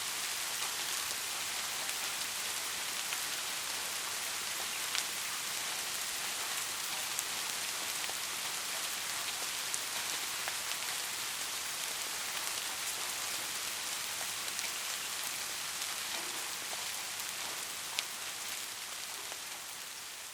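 Steady rain falling, an even hiss with a few louder individual drops ticking through it. It fades slightly near the end.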